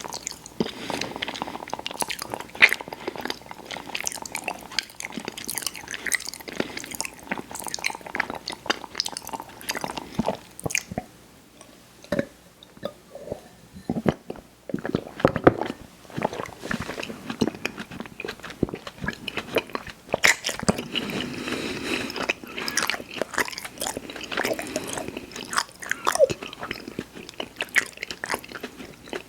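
Close-miked eating of snack cakes and sweets: biting and chewing with many short mouth clicks and smacks, and a brief quieter spell about twelve seconds in.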